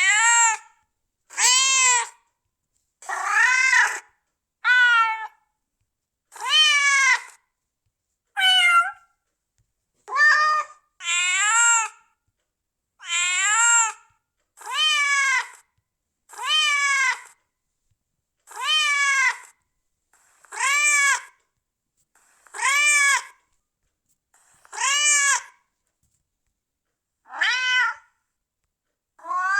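Domestic cat meowing over and over, about one meow every two seconds, each rising and then falling in pitch, with silence between them.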